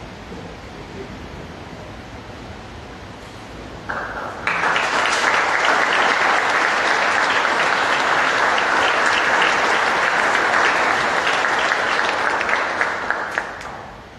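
Audience applauding. A few seconds of quiet room hiss, then the clapping starts about four seconds in, holds steady, and fades out near the end.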